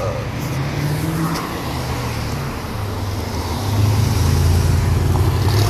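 Engine hum and road noise of a moving vehicle, heard by someone riding in it through city traffic; the hum grows louder about four seconds in.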